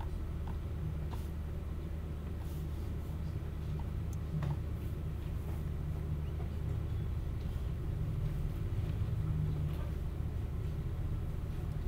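Steady low hum of room tone, with a few faint scattered clicks and taps.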